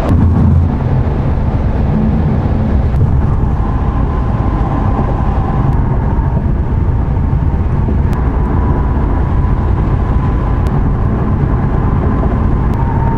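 Ford Mustang cruising at highway speed, heard from inside the cabin: a steady low drone of engine and tyre noise, with a faint steady whine above it.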